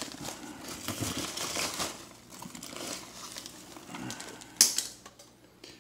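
A hand rummaging through polystyrene packing peanuts in a foam shipping cooler: rustling and crinkling, busiest in the first two seconds, with one sharp, loud crackle about four and a half seconds in.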